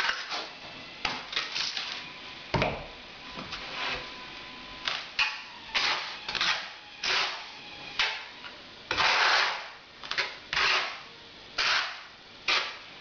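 Steel notched trowel scraping and combing tile adhesive across the back of a ceramic tile, in repeated short strokes about one or two a second, with one longer sweep around nine seconds in.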